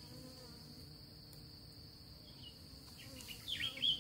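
A steady, high-pitched insect trill from crickets in the background. Near the end come a few short chirps that fall quickly in pitch.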